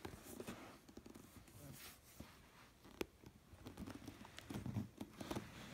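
Scissors cutting the sealed edge of a cardboard Lego box: faint snips and rustles of cardboard, with one sharp click about three seconds in and a busier patch of taps and scraping near the end.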